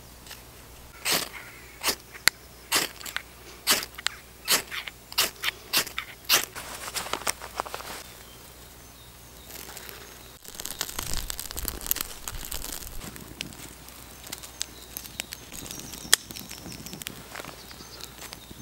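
A quick series of sharp knife strokes scraping down a stick over a tinder bundle, about two a second. After a short pause comes the crackle and rustle of burning birch bark as small twigs are laid onto the new fire.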